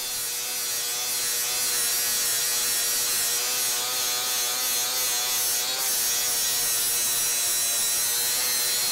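Metabo cordless angle grinder with a 36-grit flap disc grinding the steel edge of an anvil: a steady motor whine with the hiss of the abrasive on steel.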